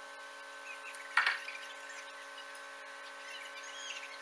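A steady high electrical whine, with a single sharp knock about a second in from work on the railway track.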